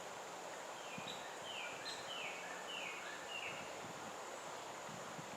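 A songbird calling: a run of about five short, high, falling notes, a little under half a second apart, over a steady hiss of outdoor background noise.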